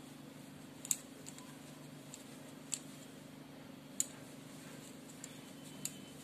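Small, sharp clicks from a metal crochet hook working wool yarn, four of them spaced one to two seconds apart, over a steady low hum.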